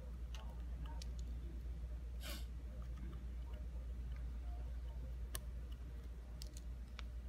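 Faint scattered clicks and taps as a small flat-blade screwdriver presses down spring push-in terminal blocks and wires are inserted, over a low steady hum. There is a short breath about two seconds in.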